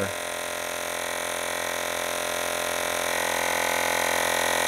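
Lexin P4 handheld digital tire inflator's small air compressor running steadily, pumping up a motorcycle tire nearing its 36.5 PSI auto-shutoff setting. It is a steady hum that gets a little louder and brighter about three seconds in.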